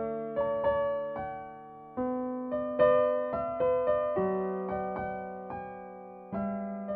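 Background piano music: a slow melody of separate, fading notes over lower notes that change about every two seconds.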